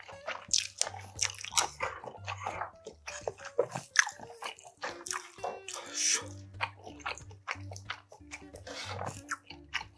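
Close-miked eating sounds: chewing and biting with wet crunches, irregular and close together. In the second half, a wooden spoon clinks and scrapes against a glass bowl of rice.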